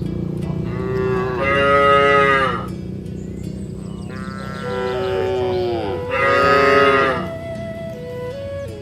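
Cattle mooing: two long moos, the second longer and louder, each dropping in pitch as it ends.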